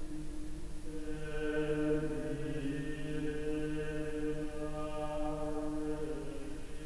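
Background music: a choir singing slow chant, with long held notes that change every second or two.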